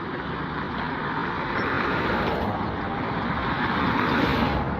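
Road traffic noise: a vehicle passing close by, its sound growing over a few seconds and dropping away near the end.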